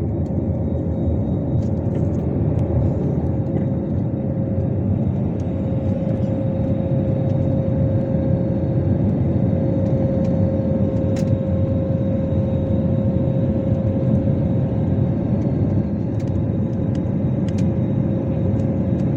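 Airliner engines heard from inside the passenger cabin during the takeoff climb: a steady, loud rumble with a steady hum running through it.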